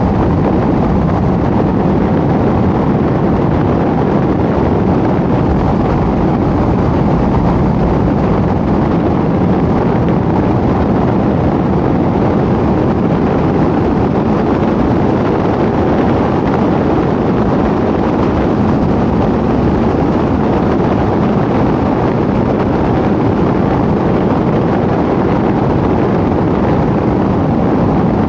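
Car driving at a steady road speed: continuous, even road and wind noise with no change in pitch or level.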